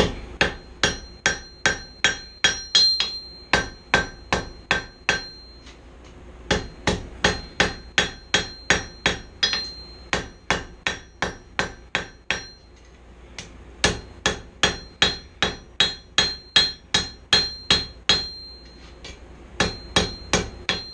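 Hand hammer striking hot steel on an anvil, drawing out forged fork tines: steady runs of blows about three a second, each leaving a ringing note from the anvil, broken by three short pauses.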